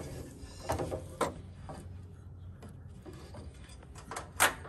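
Setting-up noises from a Shopsmith's fence and support table being adjusted: scattered knocks and scrapes, with one sharper clack near the end.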